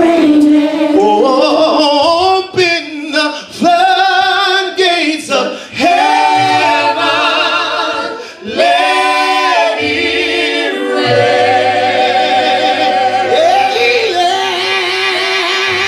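Gospel praise team of men and women singing in harmony into microphones, with long held notes and vibrato, over a low held note that comes in about six seconds in.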